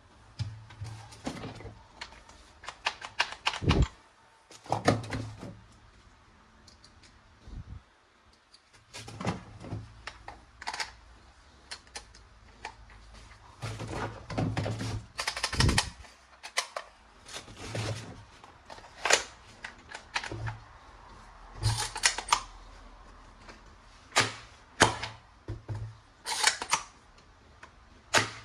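Plastic toy guns being handled: irregular clicks, snaps and knocks of plastic parts, some coming in quick runs of clicks.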